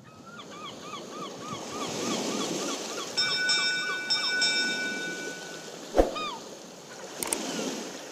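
Logo sound effects: a swell of surf-like noise with a quick run of chirps, a sustained chime chord about three seconds in, a single sharp hit about six seconds in, then another swell of noise near the end.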